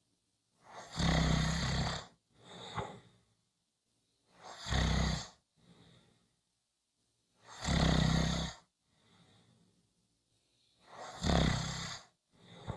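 Someone snoring steadily: four loud snores about three seconds apart, each followed by a shorter, quieter breath out.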